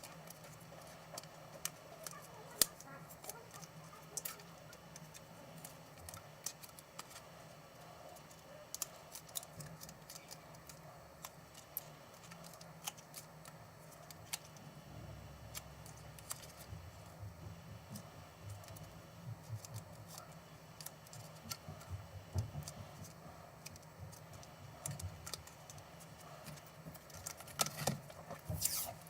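Small scattered clicks and taps of tools and parts being handled while working inside a laptop, over a faint steady low hum, with a quick cluster of louder clicks near the end.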